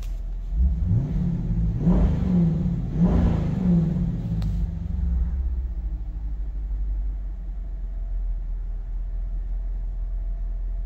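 Dodge Durango R/T's 5.7-litre HEMI V8, through a Mopar upgrade exhaust, revved in several quick blips over the first four seconds and then settling to a steady idle.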